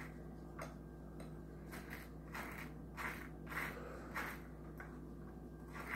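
Table knife scraping butter across a slice of bread in a run of short spreading strokes, about two a second, faint over a steady low hum.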